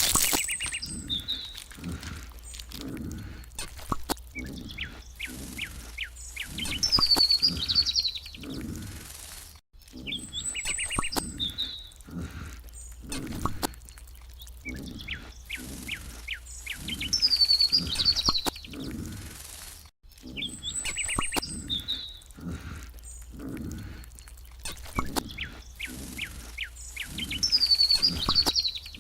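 Birds chirping and whistling outdoors, with short curling whistles and scattered clicks and soft thuds, the same pattern repeating about every ten seconds like a looped ambience track.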